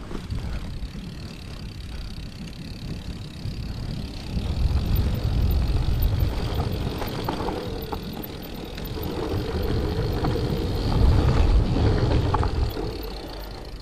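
Mountain bike riding downhill on a dirt and gravel trail: wind rushing over the camera's microphone with tyre noise and small rattles of the bike over bumps. It gets louder about four seconds in.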